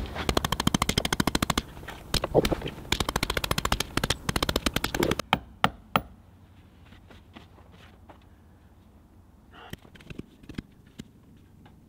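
Rapid hammering that drives a steel ground rod into the ground, about ten blows a second in several bursts. It stops about five seconds in, and a few scattered knocks follow.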